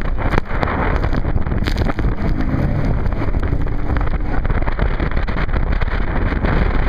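Loud, steady wind buffeting the microphone on a banana boat being towed at speed across the sea.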